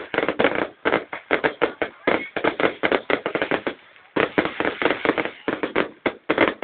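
Fireworks going off, a rapid run of sharp bangs and crackles close together with a short lull about four seconds in.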